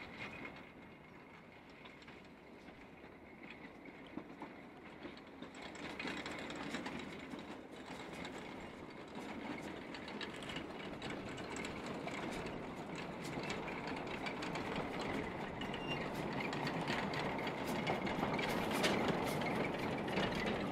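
Narrow-gauge Ffestiniog Railway steam train approaching, its running noise and clattering growing steadily louder and loudest near the end.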